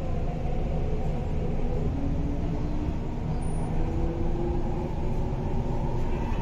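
Cabin noise of an MTR East Rail Line R-Train electric multiple unit in motion: a steady low rumble of wheels and running gear, with a faint whine that steps up in pitch from about two seconds in.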